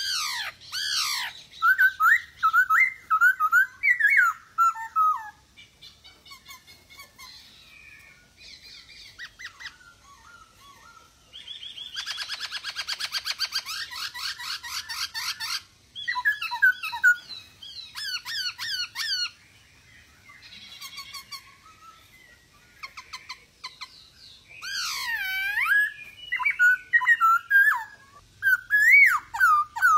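Male black-throated laughingthrush (poksay hongkong) in full song: loud whistled phrases with quick falling sweeps and warbling notes, and a fast rattling chatter in the middle. It sings in bursts with quieter pauses between.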